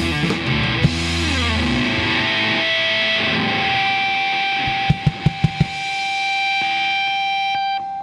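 Live rock band (electric guitar, bass and drum kit) playing the end of a song: held guitar chords ring out over the drums, with a quick fill of about five drum hits in the middle. The band stops together right at the end.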